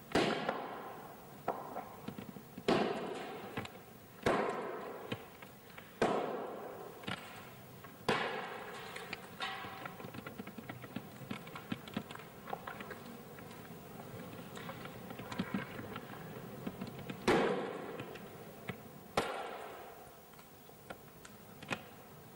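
A hammer striking metal: a series of loud clangs a second or two apart, each ringing out and fading, with lighter taps between. The clangs thin out in the middle, then two more come near the end.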